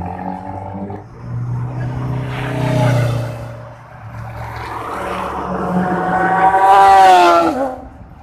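Sport motorcycle engines revving as a bike rides off, then a motorcycle approaching and passing close by near the end, its engine note loudest as it goes past and then dropping in pitch.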